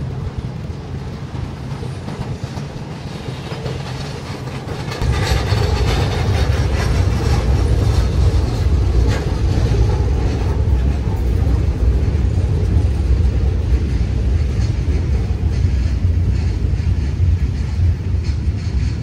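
An RJ Corman freight train's loaded flatcars rolling past, their steel wheels clattering on the rails. About five seconds in, a much louder, deep, steady rumble sets in and holds.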